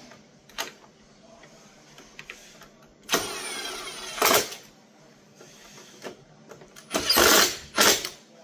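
Cordless drill/driver running twice in short bursts, driving screws into the plastic housing of an ECG machine, each run rising to a louder peak as the screw seats. Light handling clicks between.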